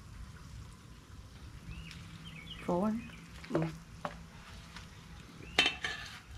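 Hot oil sizzling steadily in a deep-frying pot, with tongs stirring batter in a stainless steel bowl and a sharp clink about five and a half seconds in.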